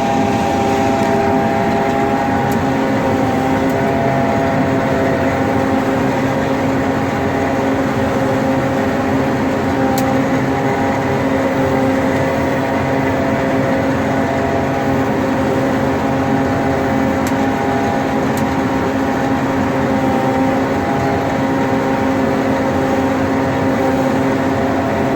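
Combine harvester running steadily while cutting soybeans: an even machine drone with several steady tones held through.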